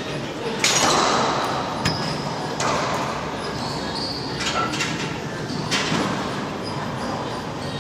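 Racquetball rally: the ball cracks off racquets and the court walls, about half a dozen sharp hits over several seconds, each ringing with the court's echo; the loudest comes less than a second in.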